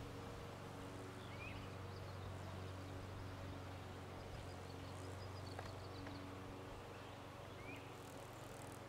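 Faint outdoor ambience: a steady low hum, with two short bird chirps, one about a second and a half in and one near the end, and a brief high ticking trill around the middle.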